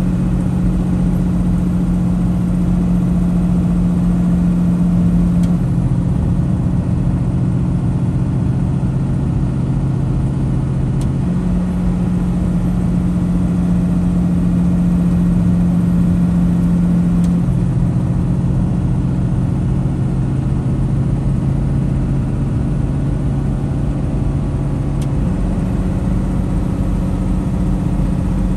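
Semi-truck's engine and tyres running at highway speed, heard from inside the cab as a steady drone and road rumble. The engine's drone steps down and back up in pitch every several seconds.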